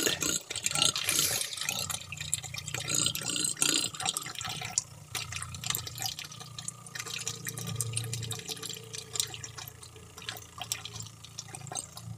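A camper's 12-volt water pump runs with a steady low hum while plumbing antifreeze is poured from a jug into its inlet, gurgling and splashing. The pump is drawing antifreeze in to charge the water lines for winter.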